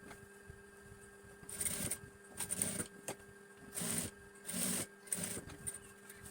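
Sewing machine stitching in about five short runs of roughly half a second each, stopping and starting between them.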